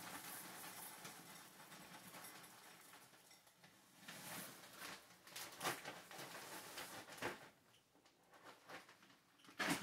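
Clear plastic cereal bag rustling and crinkling as it is handled and opened. It is faint at first, with sharper crinkles from about four seconds in and a louder crackle near the end.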